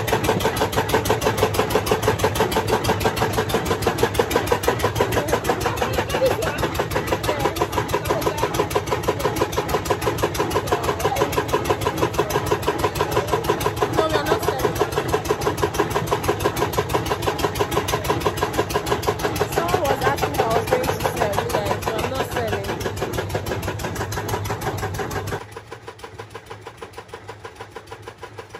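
Engine of a palm-fruit milling machine running steadily with a rapid, even pulsing beat. The sound drops sharply in level near the end.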